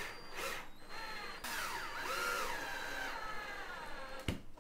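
Cordless drill running into a plywood panel: a short pull of the trigger, then a longer run of about two and a half seconds whose motor whine dips and rises in pitch as the load changes. A sharp click near the end.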